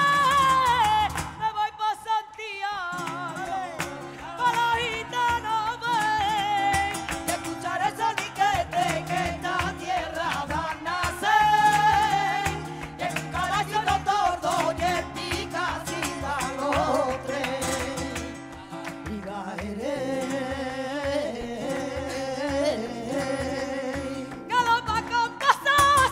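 Live flamenco cante: a woman sings in a powerful, wavering, heavily ornamented voice over flamenco guitar and percussion, with rhythmic palmas handclaps from the backing singers.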